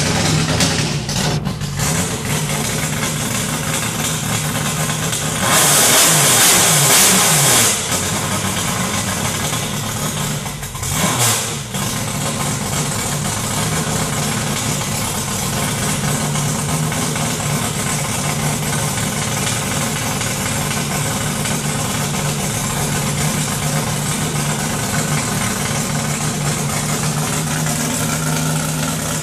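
Freshly built Piedigrossi car engine running steadily at a fast idle on its first start-up. A brief louder rush of noise comes about six seconds in, with a shorter dip and flare near eleven seconds.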